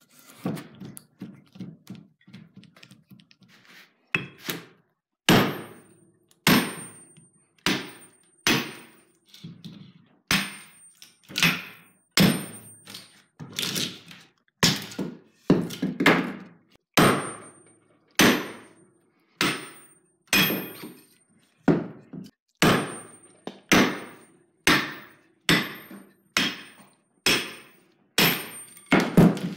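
Hammer blows on the back of a hatchet wedged in a section of ash log, driving it down to split out a handle blank along the grain. After a few light taps, the sharp blows come steadily at about one a second, some with a short metallic ring.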